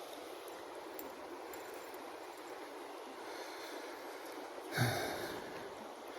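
Steady rushing of shallow creek water. About three-quarters of the way through, a single short louder rush with a low thump stands out, then fades within about half a second.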